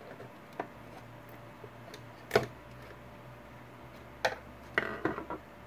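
Scattered clicks and knocks as the screwed-down wooden top panel of a handmade ghost box is pried loose with a screwdriver. The loudest is a sharp click about two and a half seconds in, with a small cluster near the end, over a steady low hum.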